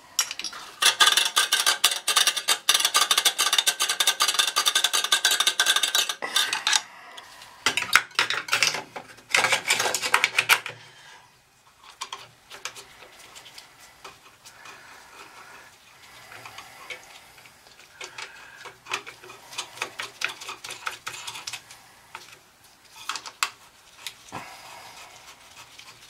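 Fast, loud scratching and scrubbing on metal for several seconds as a dirty oil-burner pump part is cleaned, then a few shorter bursts. After about ten seconds, quieter clicks and taps of hands and tools on the oil burner pump and its brass fittings.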